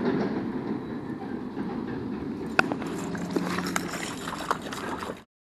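Steady rush of a flowing stream, with scattered clicks and knocks from about two and a half seconds in as the wearer of the camera moves about; the sound cuts off suddenly near the end.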